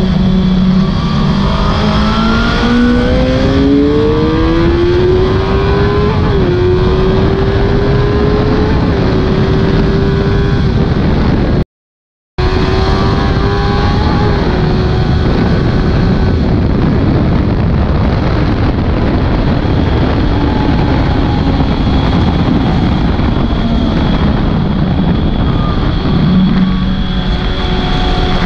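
Suzuki GSX-R1000 K6's inline-four engine at speed on a race track, heard from on board under heavy wind rush. The engine note rises steadily over the first several seconds as the bike accelerates, then holds high. About halfway through the sound cuts out to silence for a moment, then the engine note comes back high and later falls away.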